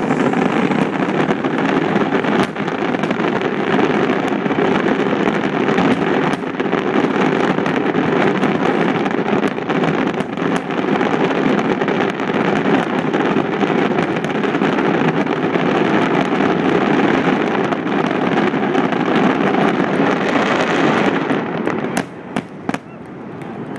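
Fireworks finale barrage: aerial shells bursting in rapid succession, so many overlapping bangs that they merge into one continuous rumble. Near the end the barrage suddenly thins out to a few separate bangs.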